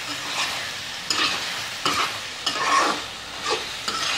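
Spatula stirring fried chicken pieces through a sizzling yogurt-spice masala in a kadhai, in repeated scraping strokes, about one and a half a second, over a steady frying sizzle.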